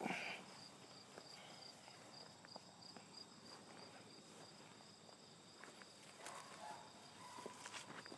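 Faint, steady insect chirping, an even pulse of about three chirps a second, with soft rustling and light steps in the grass and a short louder noise right at the start.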